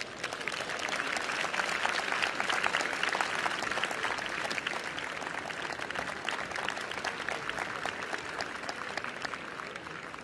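Large arena audience applauding. The clapping swells within the first couple of seconds, then slowly dies down.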